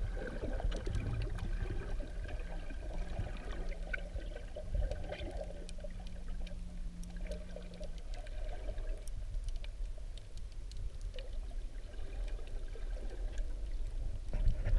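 Underwater sound heard through a camera's waterproof housing: a muffled, steady low rumble of moving water with scattered faint clicks. A faint steady low hum runs through the first half and stops about eight seconds in.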